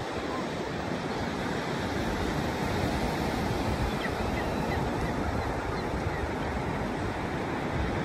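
Ocean surf breaking and washing up a flat beach, a steady rush of waves. A few faint short high chirps come about halfway through.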